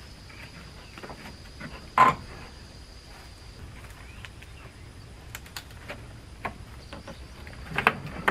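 Hammer striking old wooden boards during demolition: one sharp blow about two seconds in, a few light taps, then two quick blows near the end. A steady high insect call runs underneath.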